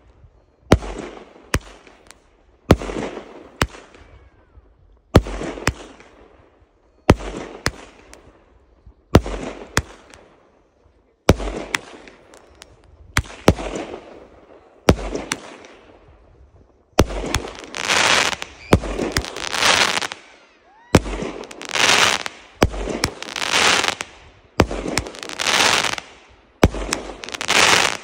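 Aerial fireworks going off one after another, about one every two seconds: each sharp bang is followed by a fading crackle. A little past halfway the crackling becomes much louder and denser.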